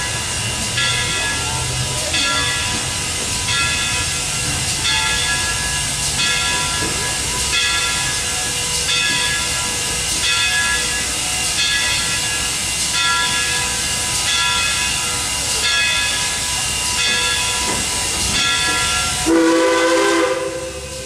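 The bell of CNJ #113, a 0-6-0 steam locomotive, ringing steadily at about one and a half strokes a second over the hiss of steam as the engine approaches. Near the end its steam whistle blows a loud chord of several tones, louder than anything before it.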